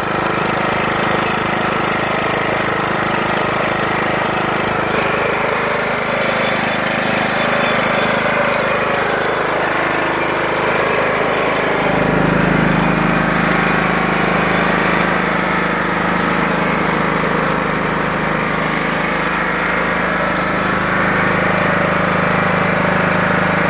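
The John Deere LT155's 15 hp Kohler Command single-cylinder engine running steadily at wide-open throttle. Its low rumble grows stronger about halfway through.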